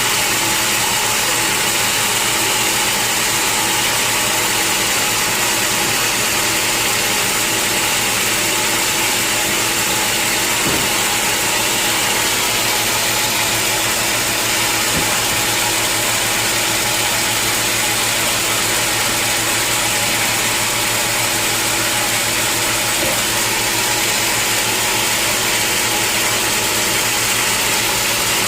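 Sawmill machinery running steadily: a constant mechanical noise with a low hum underneath and a couple of faint knocks partway through.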